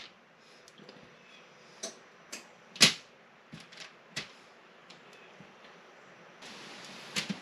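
Kitchen tongs clicking and tapping against a bowl as egg-coated zucchini strips are picked out: a handful of light, scattered clicks, with one sharper knock about three seconds in. A faint steady hiss comes in near the end.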